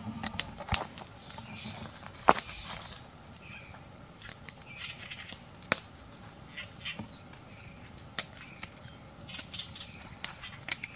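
Wood fire crackling, with scattered sharp pops and snaps, a few of them louder. Small birds chirp in short high calls.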